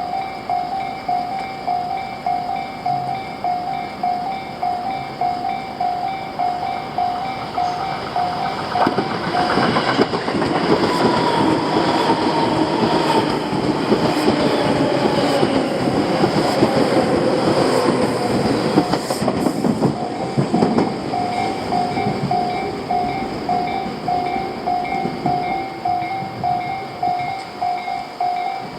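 Japanese level-crossing warning bell ringing at about two strokes a second. From about nine seconds in, a Tobu train runs through the crossing with wheels clacking over rail joints and a whine falling in pitch, drowning the bell. The train has gone by about twenty-one seconds in and the bell is heard again.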